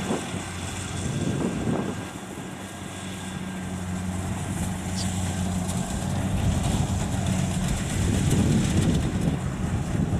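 Kubota DC70 rice combine harvester working as it cuts and threshes rice: its diesel engine runs with a steady hum under a dense clatter of machinery, growing louder over the second half as the machine comes closer.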